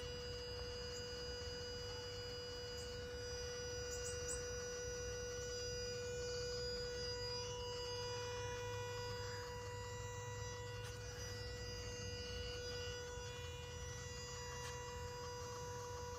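Steady electrical humming and buzzing from a 2010 third-generation Toyota Prius: one constant tone with fainter higher tones over a low rumble, a further tone joining about seven seconds in. It is a noise the car has always made, which the owner finds louder than he remembers.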